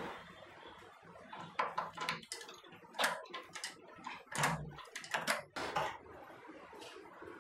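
Sharp clacks and knocks at a wooden door fitted with a metal rim lock, in several quick groups, one with a dull thump about four and a half seconds in.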